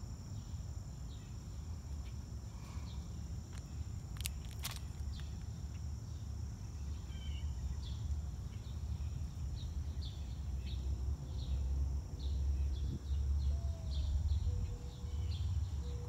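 Outdoor summer ambience: a steady high insect drone with many short repeated chirps, over a low uneven rumble that grows louder in the second half. Two sharp clicks come about four seconds in.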